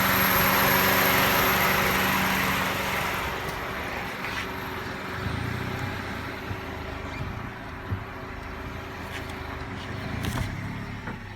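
1999 Toyota Corolla 1.8-litre four-cylinder engine running with an intermittent knock that comes from a worn, wobbling power steering pump pulley. The sound is loudest for the first two or three seconds, then drops, with a few scattered ticks.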